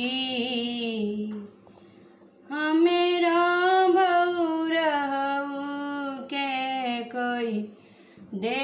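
A woman singing a Bhojpuri devotional song to Shiva in long held phrases, breaking off twice for a short pause.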